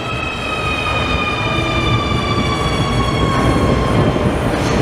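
Nuremberg U-Bahn train running through the underground station: an electric motor whine slowly falling in pitch fades out about four seconds in, over a low rumble that grows louder.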